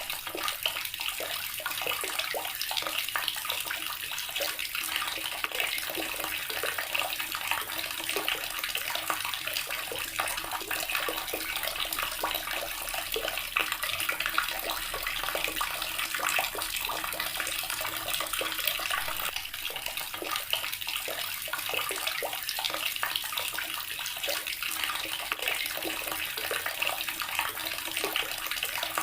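Water running steadily from a tap, splashing continuously with a dense crackle of small droplets.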